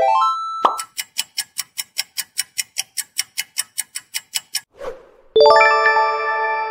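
Quiz-game sound effects: a quick rising run of notes ending in a pop, then a countdown timer ticking fast, about five ticks a second, for roughly four seconds. A short whoosh follows, then a bright bell-like chime rings out as the answer is revealed.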